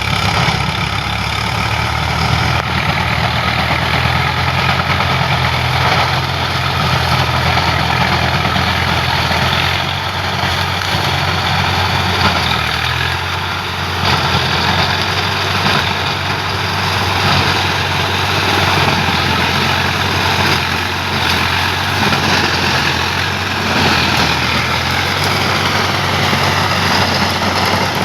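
Swaraj 744 FE tractor's three-cylinder diesel engine running steadily at an even speed.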